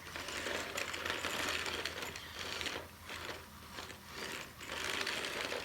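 Small electric drive motors and plastic gears of a remote-controlled toy droid whirring and clicking, cutting in and out several times as it tries to drive and turn. The owner takes one of its turning mechanisms to be broken.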